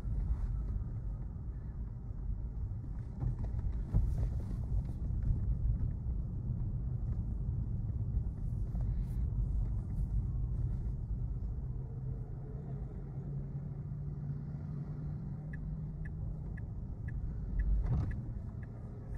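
Road and tyre rumble inside the cabin of a Tesla Model 3 driving slowly in town, steady, with an occasional bump. Near the end the turn-signal indicator ticks quietly about twice a second as the car nears a turn.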